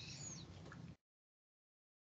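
Near silence: faint room noise through a video-call microphone, with a faint high chirp or two, then the audio cuts to dead silence about a second in.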